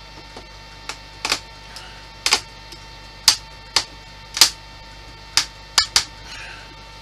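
Irregular sharp clicks and taps, about a dozen in seven seconds and some in quick pairs, from small model parts and tools being handled while panels are fitted to a scale-model Spitfire.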